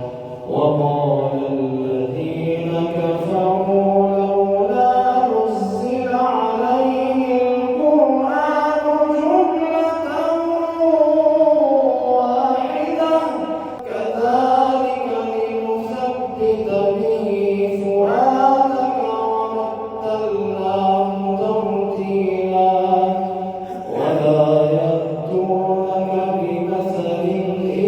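A man's voice reciting the Quran in a melodic, drawn-out style, holding long notes with slow turns of pitch.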